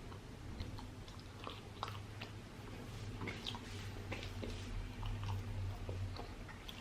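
A person chewing a mouthful of chicken biryani close to the microphone, with small wet mouth clicks and smacks scattered throughout.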